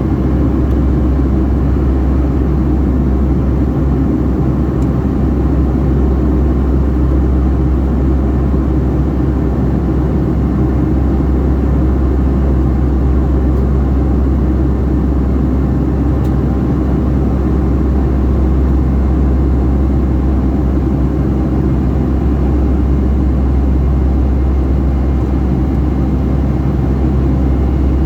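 Cabin noise inside a Boeing 757-300 jet airliner: a steady, deep rumble of the engines and rushing air that holds constant throughout.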